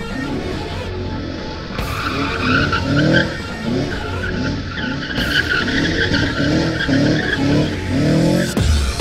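Car drifting: its engine revs rise again and again as the throttle is worked, over the steady squeal of tyres sliding.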